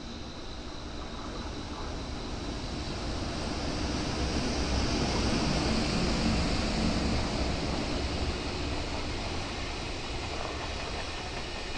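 EH500 electric locomotive passing at speed with a freight container train. The rumble swells as the locomotive approaches and is loudest as it goes by, about five to seven seconds in. After that the container wagons roll past steadily.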